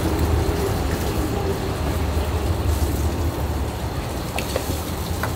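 Steady low rumble from a soba stand's steaming noodle-boiling station, with a few light clicks of a metal ladle and strainers near the end.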